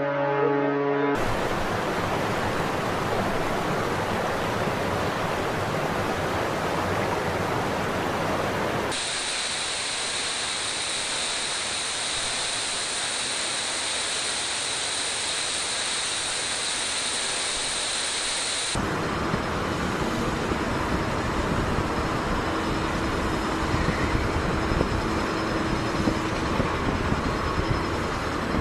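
Fireboat water cannons spraying: a steady rushing hiss, heard in three clips whose tone changes at hard cuts about a third and two-thirds of the way through. A ship's horn sounds at the very start and stops about a second in.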